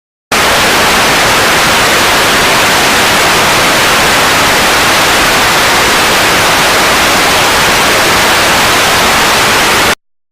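Loud, steady static hiss like white noise, with no tone or rhythm in it, starting abruptly and cutting off abruptly near the end.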